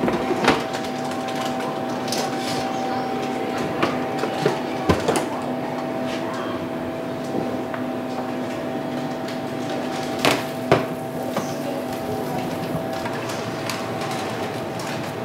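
Kitchen work noise: a steady machine hum with scattered sharp knocks and clatters, the loudest pair about ten seconds in.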